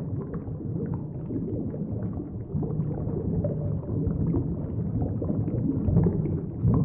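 Muffled underwater water noise: a low, uneven rumble with bubbling and gurgling.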